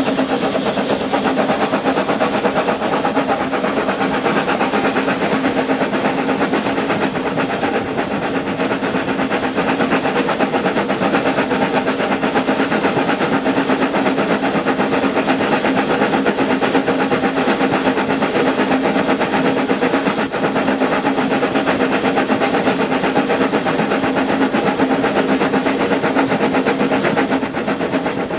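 Two small steam tank locomotives, LB&SCR Terrier 55 Stepney and SECR P class 323 Bluebell, working a train together: steady chuffing of exhaust beats mixed with steam hiss and the running noise of wheels on rail. It is heard close up from the footplate.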